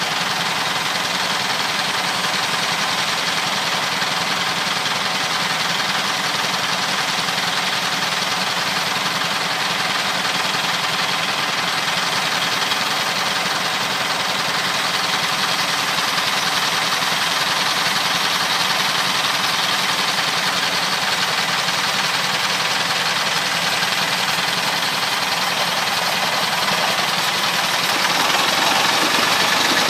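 Home-built sawmill's engine running steadily, growing a little louder near the end.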